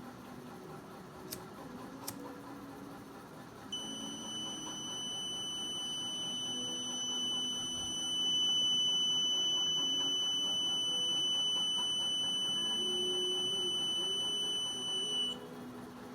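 Small 5 V buzzer of a thermistor and LM358 fire alarm circuit sounding one continuous high-pitched beep for about eleven seconds, then cutting off: the alarm tripped by heat at the thermistor. Two sharp clicks come before it starts.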